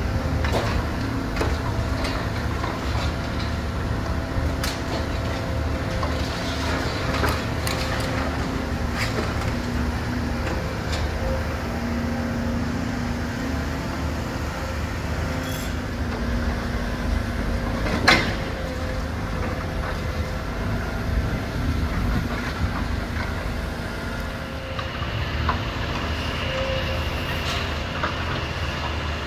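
Volvo high-reach demolition excavator's diesel engine running steadily with a hydraulic drone, while its crusher jaws knock and clatter through concrete rubble. One loud crash about 18 seconds in, and a higher steady whine near the end.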